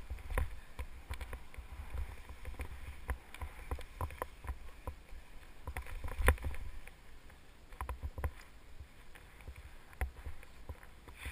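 Skis cutting and swishing through deep powder snow, with low wind rumble on the camera microphone and many irregular knocks and bumps from the run; the loudest knock comes about six seconds in.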